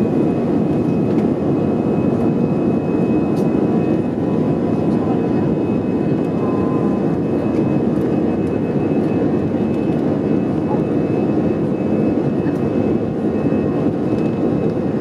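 Airbus A320 jet engine running, heard inside the passenger cabin: a steady, loud roar with a thin high whine held at one pitch.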